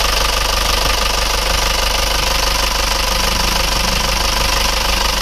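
Isuzu Panther pickup's diesel engine idling steadily. The engine is freshly rebuilt with new cylinder liners and piston rings.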